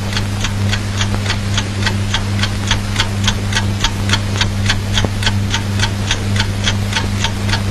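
A clock ticking steadily and fast, about three ticks a second, over a steady low hum.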